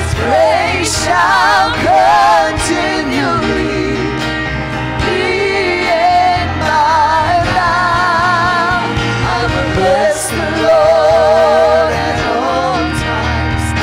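Live gospel praise-and-worship singing: voices with strong vibrato over a band with steady bass notes and occasional cymbal splashes.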